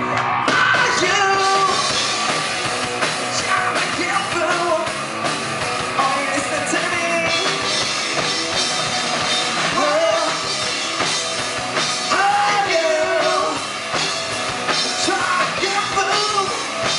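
Live rock band playing: drum kit, bass guitar and electric guitar through the stage PA, loud and continuous with a steady beat.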